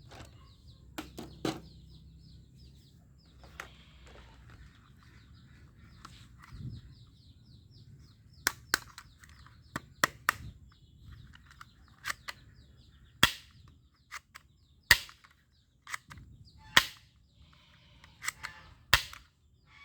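A plastic toy gun clicking: about a dozen sharp, separate snaps at uneven intervals, the strongest in the middle and near the end.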